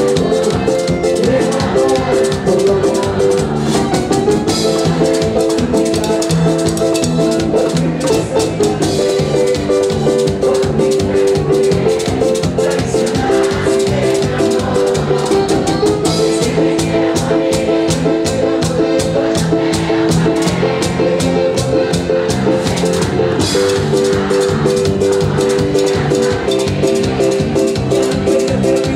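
Live band playing Latin dance music in an instrumental stretch without singing: sustained keyboard-like chords over a fast, steady shaker-and-drum rhythm.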